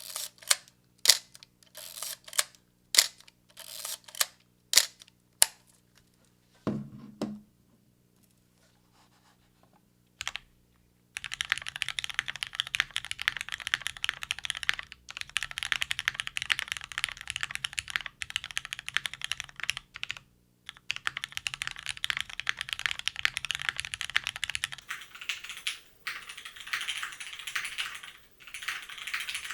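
Custom mechanical keyboard with lubed Cherry MX Black linear switches on an aluminium plate, with GMK Firefly keycaps. About ten single keystrokes come one at a time at first, with a low dull thump near seven seconds in. From about eleven seconds in comes fast continuous typing, clacking steadily with two brief pauses.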